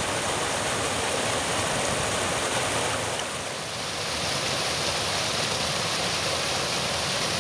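Shallow rocky stream rushing steadily over stones and a small cascade, dipping slightly in level a little before halfway through.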